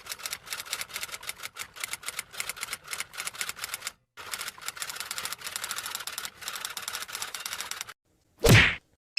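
Typewriter typing sound effect: a rapid, uneven run of key clacks, several a second, pausing briefly about four seconds in. Near the end a single short, loud whoosh.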